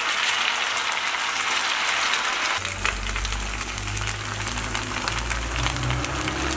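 Rice pakoda batter deep-frying in hot oil: a dense sizzle with scattered crackles, just after fresh batter is crumbled into the oil. About two and a half seconds in, a low rumble joins it.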